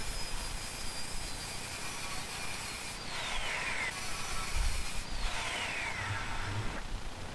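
Power saw cutting through very tough wood: a high motor whine that drops in pitch twice as the blade loads up, starting and stopping abruptly between cuts.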